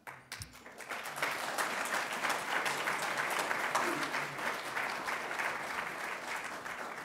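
A roomful of people applauding: many hands clapping together. It starts suddenly, swells over the first second, holds steady, then begins to taper off near the end.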